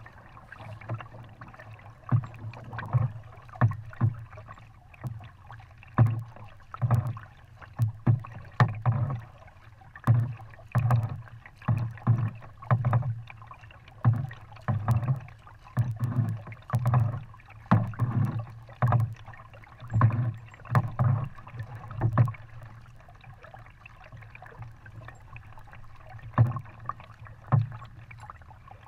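Kayak paddle strokes: a double-bladed paddle dipping and pulling through the water about once a second, each stroke a short splash with a low thud. The strokes stop about 22 seconds in, and two more come near the end.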